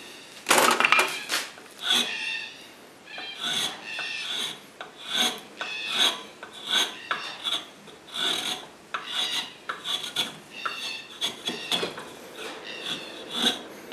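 Hand file rasping along a sheoak wooden hammer handle in repeated rough scraping strokes, about one and a half a second, the heaviest about half a second in.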